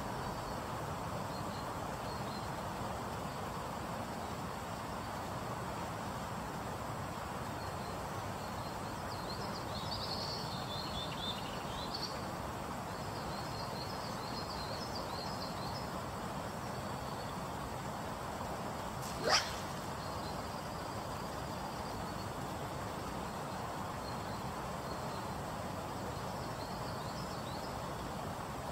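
Steady rush of a fast, high river, with small birds chirping about a third of the way in and one short sharp snap a little past the middle.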